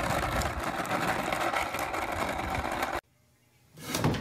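Skateboard wheels rolling on asphalt, a steady gritty rumble that cuts off about three seconds in. After a short silence come a few knocks near the end.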